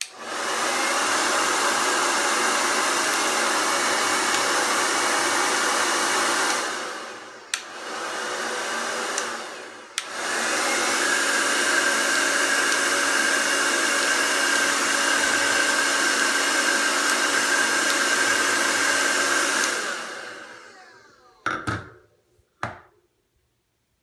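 JINRI 1875 W hair dryer switched on and running: a steady blowing and motor whine. About seven seconds in it drops to a softer, lower setting, with switch clicks, then clicks back up to full blow about ten seconds in. About twenty seconds in it is switched off and winds down, followed by two short knocks.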